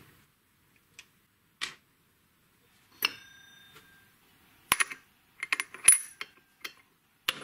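Small steel chainsaw clutch parts clicking and clinking as they are handled and fitted onto the clutch drum. About three seconds in, one part rings briefly. Clusters of sharp metal clicks follow as a washer is set down and seated, the loudest near the end.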